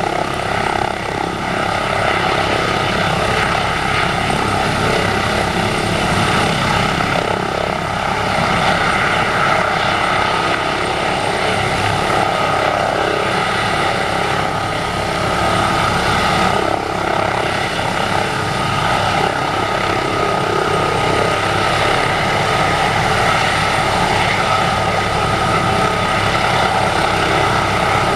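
Airbus H145 D3 helicopter running steadily in a low hover: the whine of its twin turbines over the noise of the five-blade main rotor and the ducted Fenestron tail rotor.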